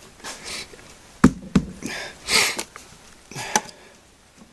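Handling noises as a drain tube is fitted into a boat's transom hole: two sharp clicks a little over a second in, and several short hissy noises.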